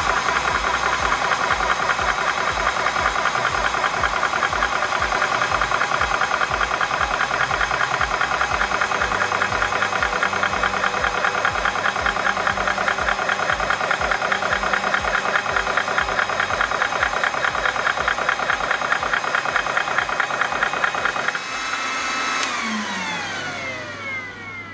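Portable 12 V high-pressure PCP air compressor pumping air into a small gas cylinder: a steady, fast pulsing of the piston under a constant whine as the pressure climbs toward 20 MPa and beyond. Near the end the pumping stops and the motor winds down with a falling whine.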